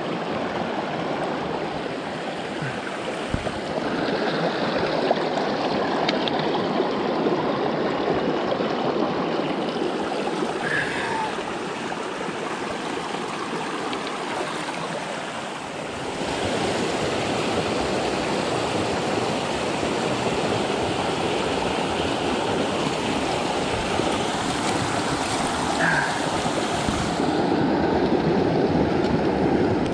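A small rocky mountain brook running over boulders close at hand: a steady rush of water that dips briefly just past halfway.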